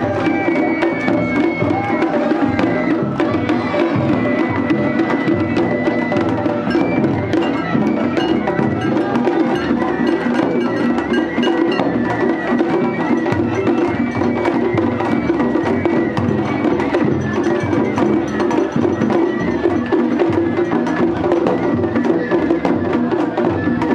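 Japanese festival music (matsuri-bayashi) played live: a fast, continuous run of drum and percussion strikes, with a high held melody line over it in places.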